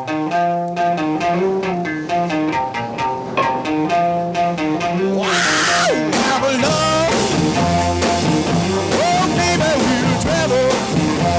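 A rock song opening with a repeated picked electric guitar riff. About five seconds in the full band comes in.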